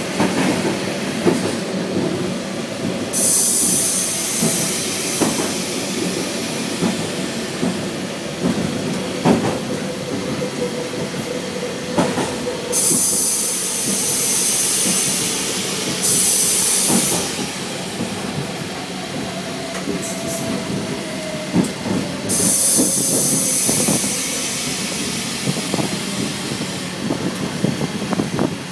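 Sri Lanka Railways Class S11 diesel multiple unit heard from inside the driver's cab, running steadily with its wheels clicking over rail joints at irregular intervals. Four spells of high hissing air come and go, each lasting one to three seconds.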